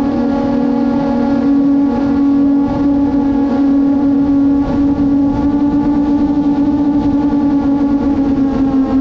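FPV drone's electric motors and propellers whining at a steady pitch that wavers slightly, with wind noise rushing over the onboard camera's microphone.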